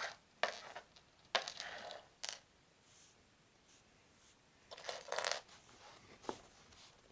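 Small plastic Lego pieces and their packaging being handled: a few light clicks among short rustling scrapes.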